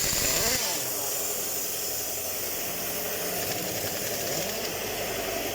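Compressed air hissing loudly at a truck tyre, cutting off under a second in, then a steady engine-like running noise.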